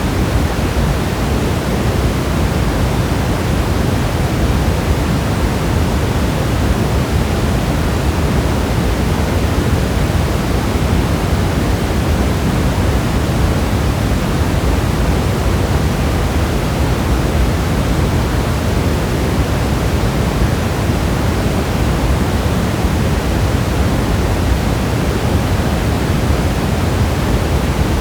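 Steady rain sound: an even, unbroken rush of noise, heaviest in the low end, with no single drops or changes standing out.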